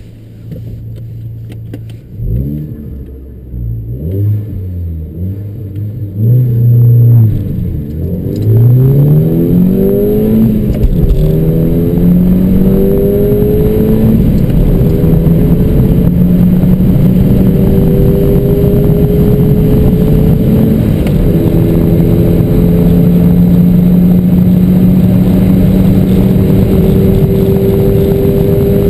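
Volkswagen Golf Mk5 GTI's turbocharged 2.0-litre four-cylinder with the catalytic converter removed and a cold air intake, heard from inside the cabin. A few short revs are followed, about eight seconds in, by a hard pull through the gears. The engine pitch rises, then drops at each shift, and settles into a steady, loud drone at speed.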